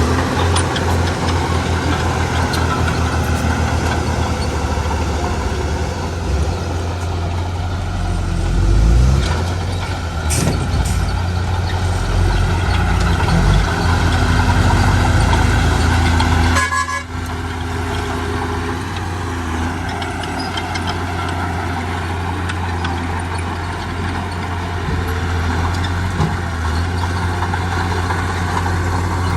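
Heavy diesel engines of earthmoving machines at work, a steady loud drone that rises and falls with load, with a brief break about two-thirds of the way through.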